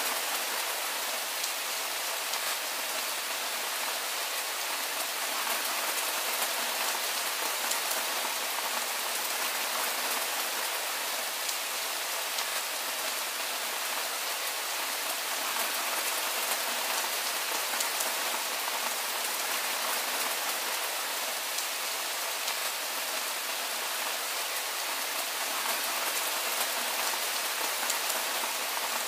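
Steady soft rain falling: an even hiss dotted with fine scattered drop taps.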